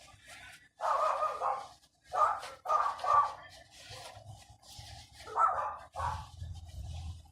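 A dog barking, about six barks in short bunches.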